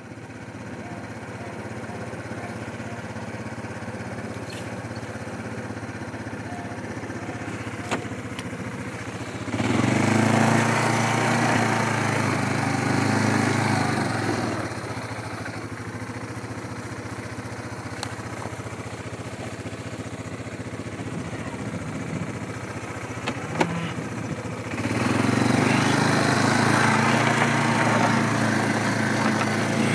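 A vehicle engine running steadily, growing louder for about five seconds a third of the way in and again near the end, with a few sharp clicks.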